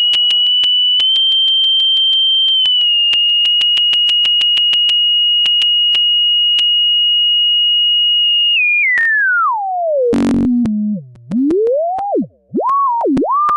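Pure sine tone from an online tone generator, held high and piercing near 3 kHz for about eight seconds, then sliding down to a low hum and sweeping up and down in pitch before settling around 1 kHz near the end.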